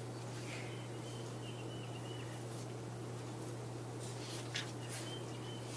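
Quiet room with a steady low hum throughout, and faint thin high squeaks twice, the second near the end.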